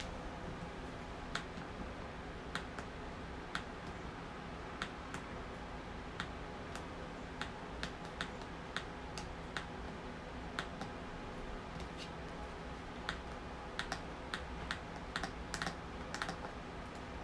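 Small battery-powered oscillating USB desk fan running with a steady hum, under weak power. Light sharp clicks come at irregular intervals throughout.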